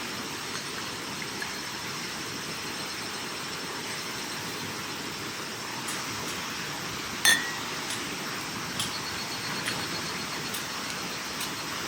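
A steady hiss with a few light ticks, and one sharp clink about seven seconds in.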